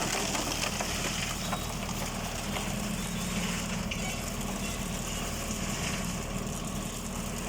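Tractor engine running steadily under load, driving a PTO-powered transit concrete mixer.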